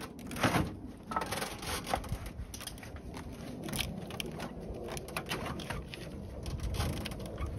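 Scattered clicks, light knocks and scraping of plastic and metal parts as a car radiator is worked loose and eased out past its hoses and wiring in the engine bay.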